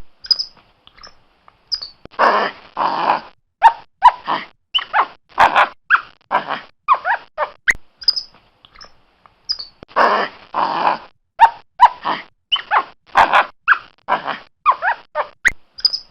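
Capuchin monkey calling: two short high squeaks, then two longer harsh calls, then a quick run of short chirps and squeals, some gliding up in pitch. The same sequence repeats about eight seconds in.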